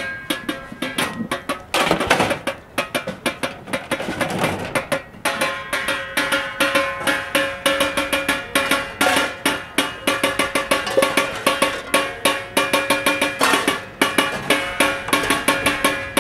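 Street drumming on a kit of found objects, plastic buckets and jerry cans, steel cooking pots and metal trays, struck with sticks in a fast, dense rhythm with rolls and some pitched metallic ringing.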